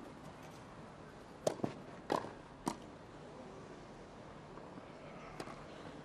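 Tennis ball struck by rackets during a rally on a grass court: a few sharp hits, three close together about a second and a half in, another a little later and one more near the end, over a hushed crowd.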